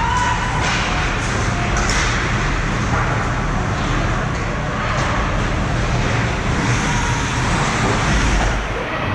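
Ice hockey rink sound during play: a steady low rumble with hiss, skates scraping the ice, and a few faint knocks of sticks or puck.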